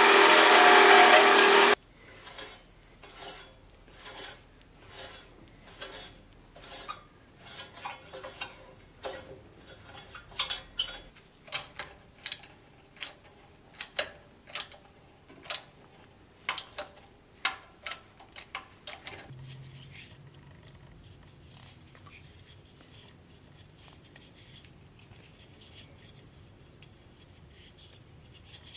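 A belt grinder sanding a wooden handle, loud and steady, cuts off about two seconds in. Then comes a long run of rasping hand strokes of a file on metal, a little over one a second, which stops about two-thirds of the way through and leaves only a faint hum.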